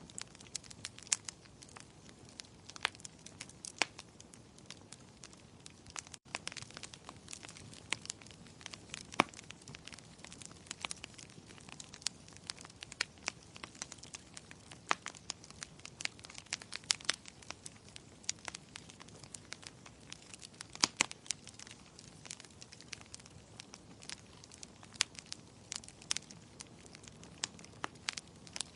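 Wood fire crackling: irregular sharp pops and snaps over a soft, steady hiss.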